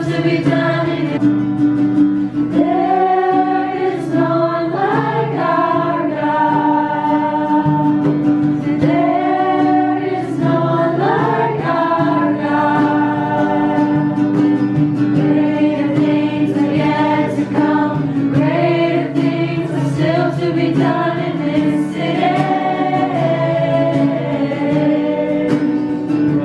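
A small group singing a worship song together, with an acoustic guitar playing underneath.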